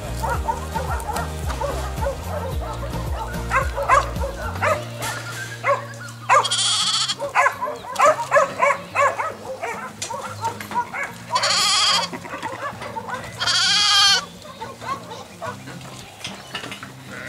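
Sheep bleating: three long, loud bleats in the second half, with many shorter calls among them.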